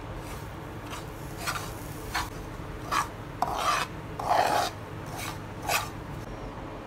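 A utensil scraping and stirring semolina and grated coconut around a non-stick pan: about seven short, irregular scraping strokes, the longest and loudest near the middle.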